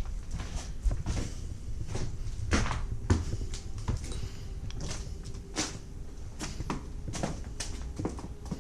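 Irregular light knocks, clicks and scrapes, several a second and uneven in spacing, over a low rumble, with a faint steady hum through the middle.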